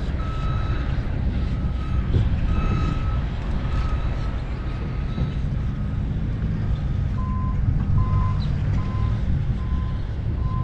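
Repeated electronic beeping, about one short beep a second. About seven seconds in, the beeps drop to a lower pitch and come a little faster. Under them runs a steady low rumble.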